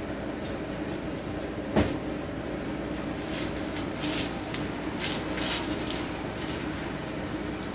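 Kitchen handling noises over a steady hum: one sharp knock about two seconds in, then several short hissy scrapes.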